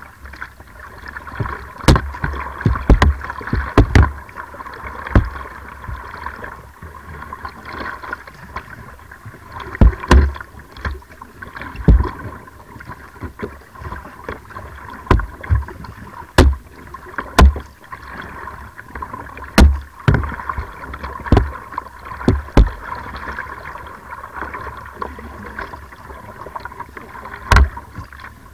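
Slalom kayak paddled hard: a steady rush of water along the hull with sharp thumps from paddle strokes and water slapping the boat, about one every second or two, picked up by a camera fixed to the kayak's deck.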